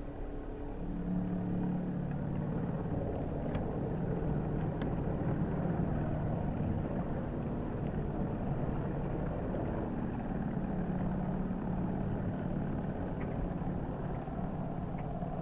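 Radio-controlled model boat's water-cooled brushless motor running at speed, a steady drone over the hiss of spray as the hull rides on its foils; it picks up about a second in and then holds steady.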